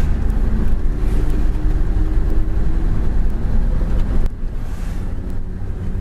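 Mitsubishi Fuso truck's diesel engine running under way, heard from inside the cab as a steady low rumble with road and wind noise. It gets a little quieter about four seconds in.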